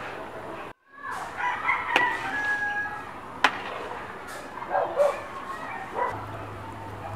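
A rooster crowing after a brief dropout about a second in, followed by shorter fowl calls around five and six seconds in. Two sharp knocks stand out among the calls.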